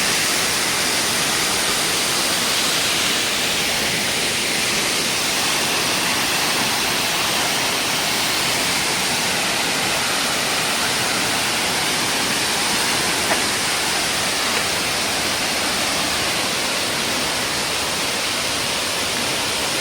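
Waterfall's steady rush of falling water, with one brief click about two thirds of the way through.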